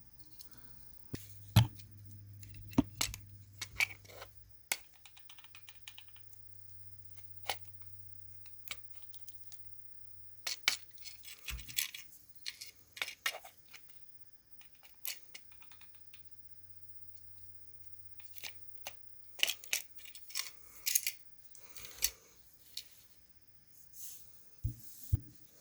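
Scattered small clicks, taps and rustles of plastic speaker parts and wires being handled, with quiet gaps between. A low steady hum runs underneath for the first half and stops about eleven seconds in.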